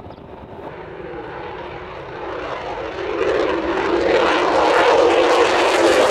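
Lockheed Martin F-22 Raptor's twin Pratt & Whitney F119 turbofans climbing away after takeoff, the jet noise growing steadily louder and jumping up about three seconds in as the fighter comes closer.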